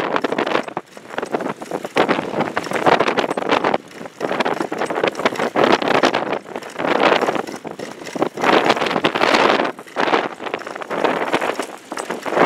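Strong, gusty wind buffeting the microphone, loud and uneven, swelling and dropping every second or two.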